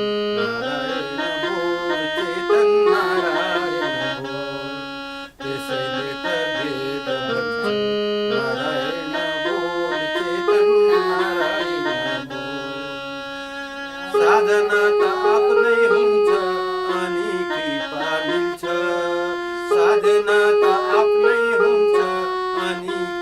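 Instrumental music of a devotional bhajan: a reed instrument in the accordion family plays a melody of held, sustained notes, with a brief break about five seconds in.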